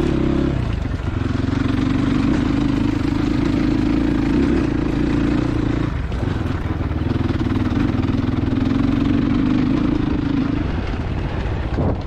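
Crossfire Cross X 250 SE dirt bike's engine running at a steady throttle while riding over a rocky dirt track, with a steady rushing noise under it. The engine note drops briefly about six seconds in and again near the end as the throttle is eased.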